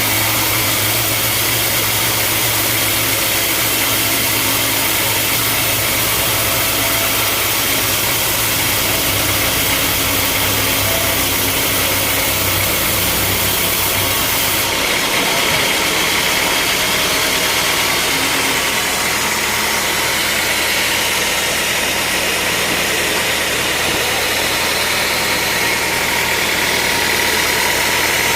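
Sawmill machinery engine running steadily under a loud hiss of noise. The pitch of its hum changes abruptly about halfway through.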